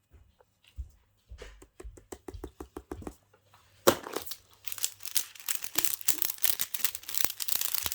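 Fidget toys being handled: a run of quick clicks about a second in, then dense crinkling and rustling from about four seconds in.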